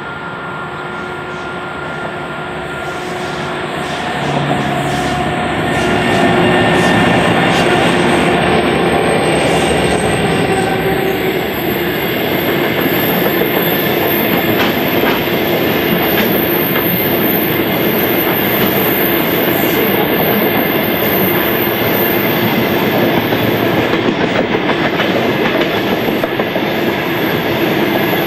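Diesel-hauled freight train of hopper wagons approaching and rolling past on a curve: the sound builds over the first several seconds as the locomotive nears, then settles into a steady loud rumble of wagon wheels with clickety-clack over the rail joints and a thin high wheel squeal.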